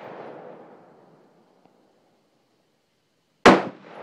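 Rolling echo of an AR-15 rifle shot fading away over the first second. About three and a half seconds in, another sharp, loud shot, followed by a long rolling echo.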